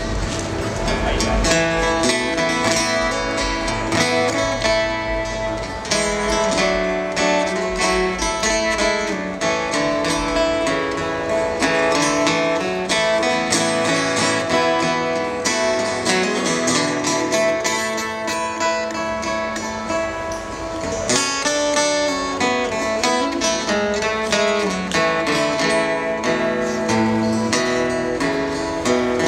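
Instrumental break of a slow gospel hymn played live on two acoustic guitars, strummed and picked, with no singing.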